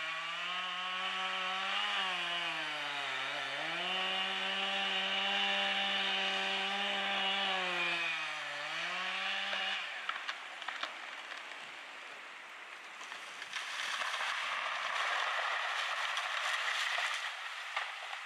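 Stihl MS 661 Magnum two-stroke chainsaw running at high revs through the back cut, its pitch dipping twice under load, then shutting off abruptly about ten seconds in. Sharp cracks of the breaking holding wood follow, then a few seconds of rushing crash as the ponderosa pine falls, with more cracks near the end.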